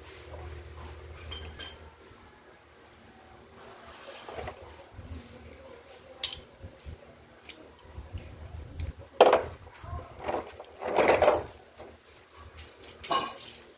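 Metal hand tools clinking and knocking against each other and against engine parts, with louder clanks about nine and eleven seconds in.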